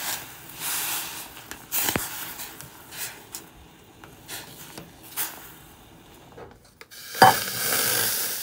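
Wooden chopsticks stirring noodles in a stainless pot of boiling broth: short scrapes and swishes, with a sharp click of the chopsticks against the pot about two seconds in. Near the end comes a knock, then a steady splashing hiss as the noodles and broth are poured from the pot into a ceramic bowl.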